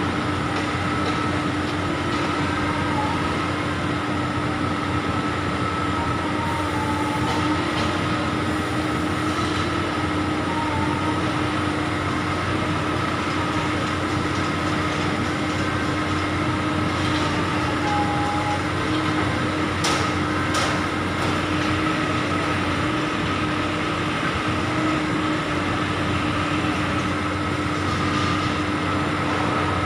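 Diesel engines of heavy construction machinery, an excavator and a crawler piling rig, running steadily: a constant drone with a steady hum. A couple of sharp metallic clanks come about twenty seconds in.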